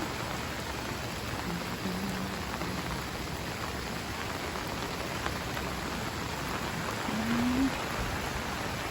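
Heavy rain falling steadily, a dense even hiss. Twice, about a second and a half in and again around seven seconds, a brief low steady tone sounds under it.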